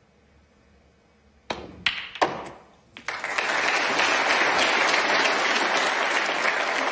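Snooker cue and balls clicking as a plant is played, a few sharp knocks about a second and a half in, followed by the arena crowd applauding steadily once the red is potted.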